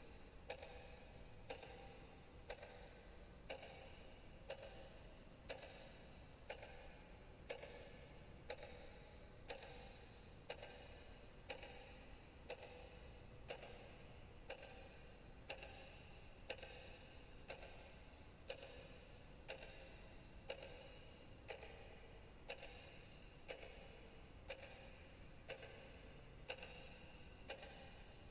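A clock ticking faintly and evenly, about once a second.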